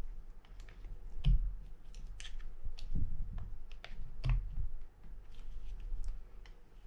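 Small metal clicks and scrapes of a screwdriver tip prying at parts around the gear shaft on a Shimano TLD 25 reel's side plate, with a dull knock of handling about a second in and another about four seconds in.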